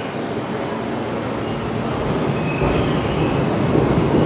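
New York City subway train standing in the station with its doors open, giving a steady rumbling hum that grows louder in the second half.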